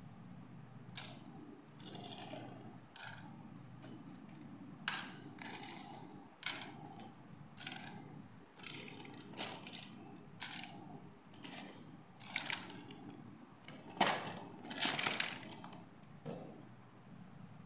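Small plastic doll accessories such as combs, hair clips and mirrors clicking and clattering as they are taken from a cardboard box and set down in a pile, in irregular taps with a few louder rattling bursts.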